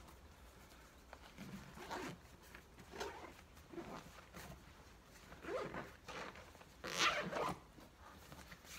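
Zip on a large fabric tent carry bag being pulled closed in several short strokes, the longest and loudest about seven seconds in.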